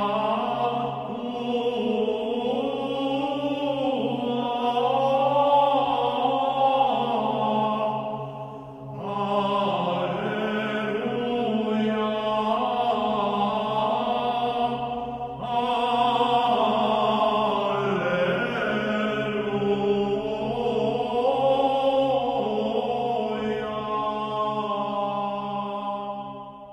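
Soundtrack music of chanting voices over a steady low held drone note, sung in long phrases with short breaks about nine and fifteen seconds in. It fades out at the end.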